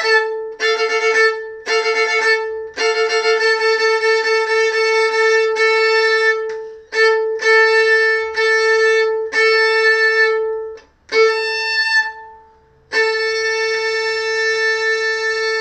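Solo violin played with the bow: a few short notes, then a long run of sustained bow strokes held mostly on one high note, with brief breaks about 11 and 12 seconds in.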